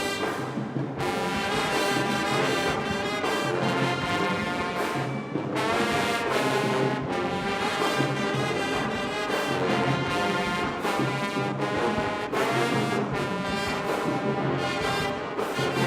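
A marching band's brass section playing loudly, with full held chords over a steady low bass pulse.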